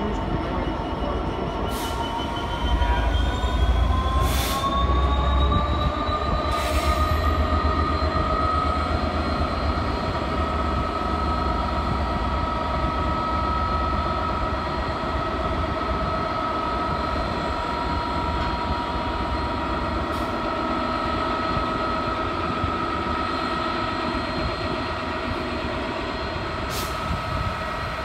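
Freightliner Class 66 diesel locomotive hauling a container freight train, its EMD two-stroke V12 working with a steady rumble. A high whine rises in pitch over the first several seconds and then holds steady, with a few brief sharp noises over it.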